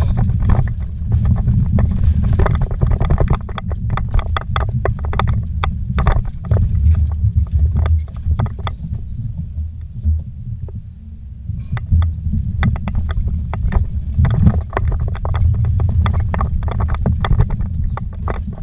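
Vehicle driving fast over a rough, rocky dirt trail, heard from inside the cab: a constant low rumble from the engine and tyres, with many sharp knocks and rattles as it bounces over rocks. The jolts ease off briefly about ten seconds in.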